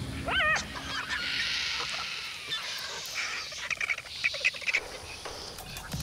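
Vultures squabbling at a carcass: a short wavering squeal, then a long harsh hiss, then a run of sharp clicks and short chirps.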